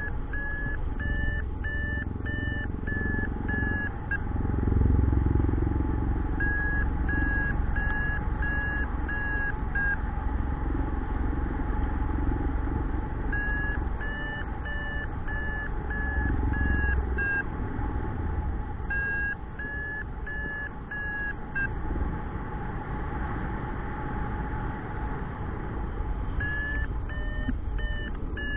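Paragliding variometer beeping in runs of short beeps, about two a second, the climb tone that signals lift in a thermal. The runs come and go about five times over steady wind rush on the microphone.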